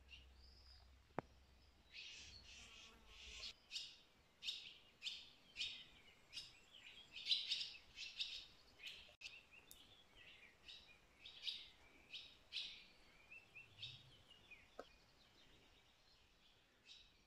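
Small birds chirping: a run of short, high chirps a couple of times a second, busiest in the middle and thinning out toward the end.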